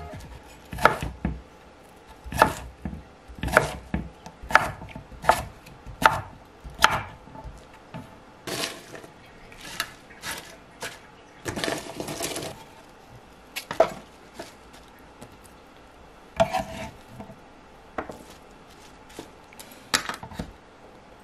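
Kitchen knife slicing through a pear onto a wooden cutting board, about ten sharp knocks in the first seven seconds. Then salad leaves rustle as they are handled, followed by scattered light knocks of food pieces and hands on a plastic container.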